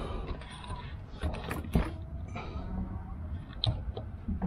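Scattered small clicks and knocks from a hand working the ignition key and switch under the dashboard of an old Mahindra jeep. The engine does not crank at all, a sign of a failed key connection.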